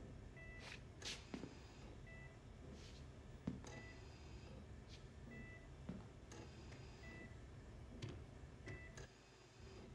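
Hospital patient monitor beeping softly: a short high beep about every second and a half over a low steady hum, with a few soft rustles and knocks of movement.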